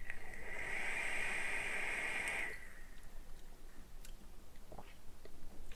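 A draw on an electronic cigarette: air hissing through the atomizer with the heating coil sizzling and crackling for about two and a half seconds. Then a softer breathy exhale with a few faint clicks.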